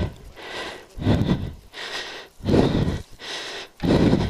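A man panting hard right at the microphone: loud exhales alternating with quieter inhales, a full breath about every second and a half.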